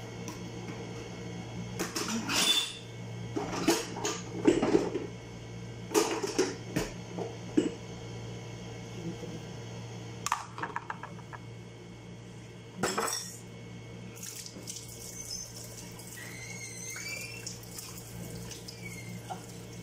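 Plastic baby-bottle sterilizer parts and dishes knocking and clattering against each other and the sink as they are handled and wiped, in scattered strikes for the first half, over a steady low hum. Near the end the tap runs as a plastic part is rinsed.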